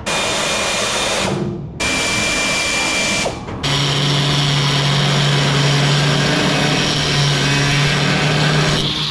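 A handheld cordless power tool runs in two bursts of about a second and a half each on a bolt under the truck's body. About three and a half seconds in, an angle grinder starts and runs steadily, cutting into the steel body panel.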